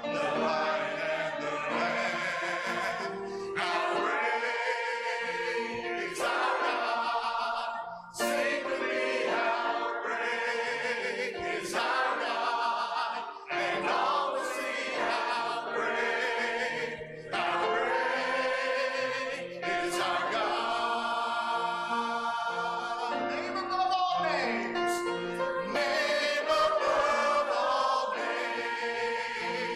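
A church choir singing a hymn in parts from hymnals. A male song leader sings along into a handheld microphone. The phrases are held, with short breaks between them.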